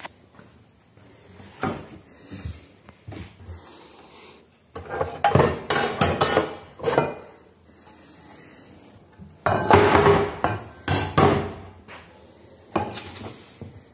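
Metal pots and pans clanking and rattling against each other as they are handled in a kitchen cupboard, in two bursts of clatter with a few single knocks around them.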